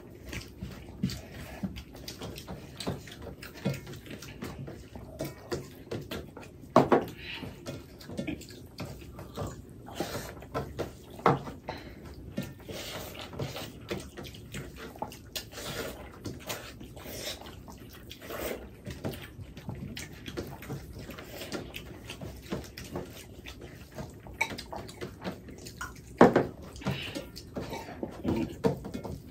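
Two people eating rice and egg curry by hand from stainless steel plates: wet squelching as fingers mix and scoop the rice, chewing and lip-smacking, and scattered light clinks and knocks on the metal plates, a few of them louder.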